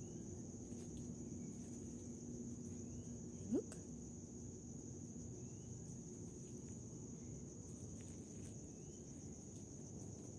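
Crickets chirring steadily at a high pitch at night, with faint short chirps now and then. About three and a half seconds in, a single brief rising squeak stands out.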